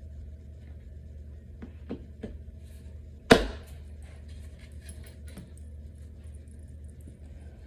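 Dresser parts and hardware being handled during assembly: scattered light taps and clicks, and one loud knock a little over three seconds in, over a steady low hum.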